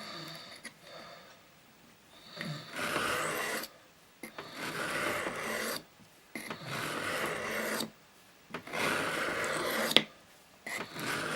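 Small penknife blade stroked across a wet whetstone: about five long rasping strokes, each a second or more, with short pauses between, and one sharp click shortly before the last stroke.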